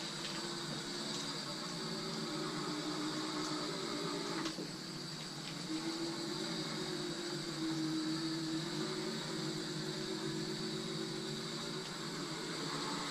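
A 24 V DC electric motor driving an old push mower on a homemade RC frame, running steadily with a hum that drifts up and down in pitch over a high whine. There is a sharp click about four and a half seconds in.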